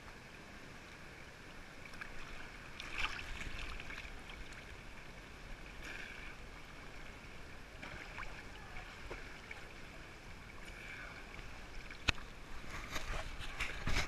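Water sloshing and splashing close to a camera held at the surface while a person swims, with soft splashes from the strokes every few seconds. One sharp knock comes about twelve seconds in.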